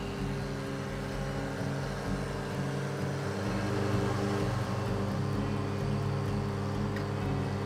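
Boom lift's engine running steadily as the basket is raised, with a deeper hum coming in about three and a half seconds in.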